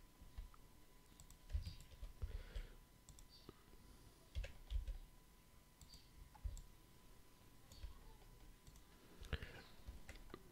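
Faint, irregular clicks and taps of a computer mouse and keyboard.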